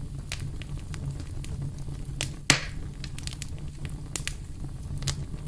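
Fire crackling and popping over a steady low rumble, with one much louder crack about two and a half seconds in.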